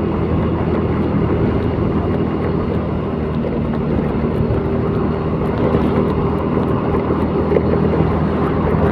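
Steady drone of a vehicle's engine with road noise while driving, the engine hum holding an even pitch.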